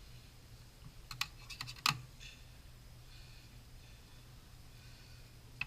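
A quick run of sharp clicks and taps about a second in, the last and loudest just before two seconds, and another click near the end: metal dissecting instruments at work while skinning a specimen.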